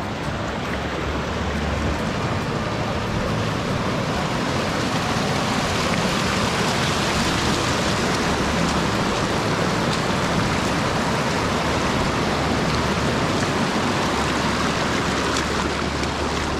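Steady, loud rush of a flowing stream.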